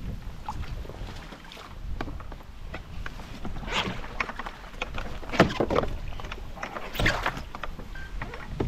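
Knocks and rustles of gear being handled on a stand-up paddleboard. They come several times in the second half, over a low steady rumble.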